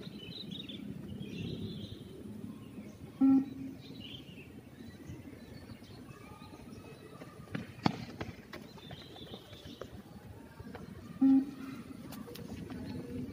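Two short electronic beeps of a beep-test recording, about eight seconds apart, each marking the moment the runners must reach the line, at level 2 pacing. A single sharp knock comes between them.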